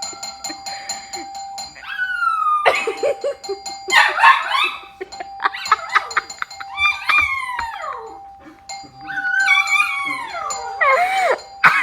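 Small Maltese–Yorkshire terrier mix dog howling and yelping in high wails that slide down in pitch, in reply to an electronic doorbell chime ringing over and over.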